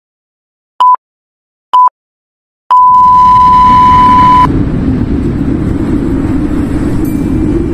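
Countdown intro sound effect: short electronic beeps about once a second, then a long beep nearly two seconds long about three seconds in. A loud, steady rumbling noise starts with the long beep and goes on after the beep stops.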